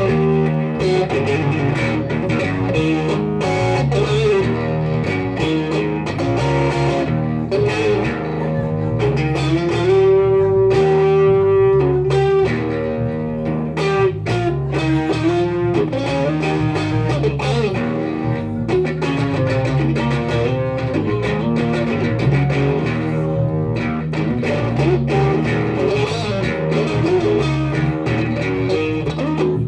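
Live blues-rock played on electric guitar and electric bass: the amplified guitar plays single-note lead lines with bent notes, one held for about two seconds near the middle, over a repeating bass line.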